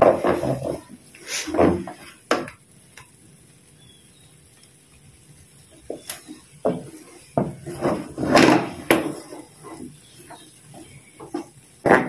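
Wooden spatula scraping and knocking against a non-stick wok while a thick Nestum and milk mixture is stirred. The strokes come irregularly, with a lull of a few seconds before they pick up again.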